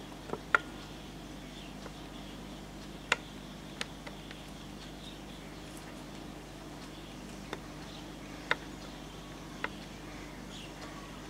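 Room tone: a steady low electrical hum with about seven scattered sharp, short clicks, the loudest about half a second in, at about three seconds and near eight and a half seconds.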